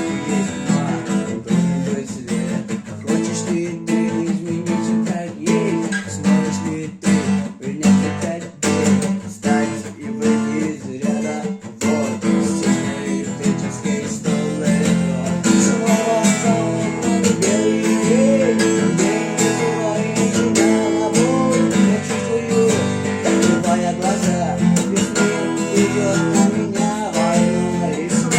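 Acoustic guitar strummed in a steady rhythm. About twelve seconds in, a sustained melody line with gentle pitch bends comes in over the chords.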